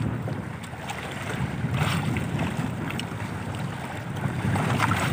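Wind buffeting the microphone over water lapping against the side of a small boat at sea, a steady rumbling noise.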